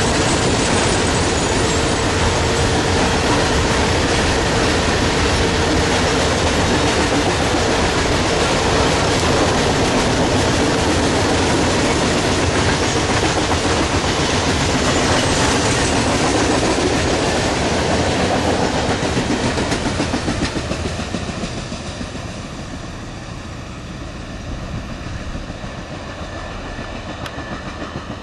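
Norfolk Southern freight train of loaded coal hopper cars rolling past close by: a loud, steady rumble of car wheels on the rails. About twenty seconds in the sound drops off and grows quieter as the end of the train passes and moves away.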